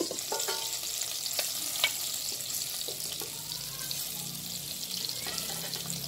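Hot oil sizzling in a clay kadhai as fried stuffed tinda are lifted out with a steel spoon, with a few clinks of the spoon against the pot and a steel plate; the sharpest clink comes a little under two seconds in.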